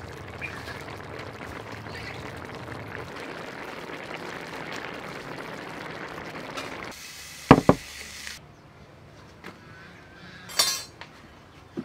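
Sauce simmering and bubbling in a wok, a steady hiss. About seven and a half seconds in it gives way to sharp clinks of dishes, the loudest two close together, then another ringing clink near the end.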